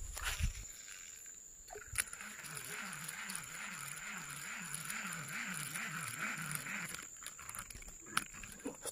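Baitcasting reel being cranked to retrieve a lure, its gears giving a steady whir that wavers with each turn of the handle, about two to three turns a second. A single sharp click comes about two seconds in.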